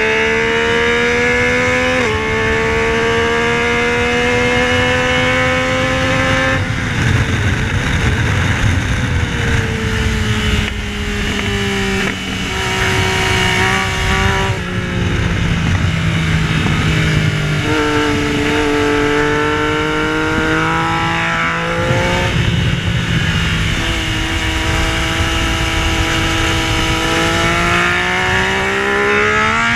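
Yamaha Tracer 900's 847 cc inline-three engine at track pace, heard from onboard: revs climb with a gear change about two seconds in, fall away for a long spell through the middle with stepwise drops, then climb again twice toward the end, over a steady rush of wind.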